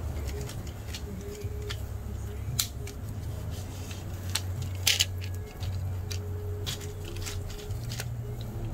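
Hard plastic printer tractor feed units handled and worked along a metal shaft: scattered clicks and knocks, a close pair about five seconds in, over a steady low hum.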